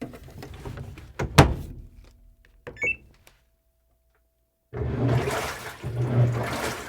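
Washing machine: a heavy thunk, a few clicks and a short beep, then after a brief silence water rushing and the drum churning, with a deep hum that swells in surges about a second apart.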